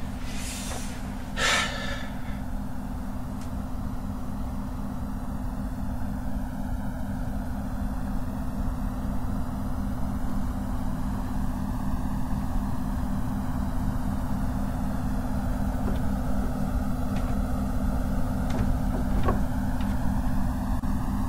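Steady hiss of pink noise with a slow swirling sweep in its tone, over a low steady hum, growing slightly louder. A short burst of noise about a second and a half in.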